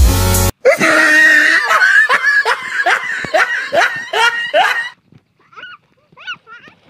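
A short loud burst of noise, then a person laughing hard in quick repeated bursts, about three a second. The laughter breaks off about five seconds in, leaving a few faint chuckles.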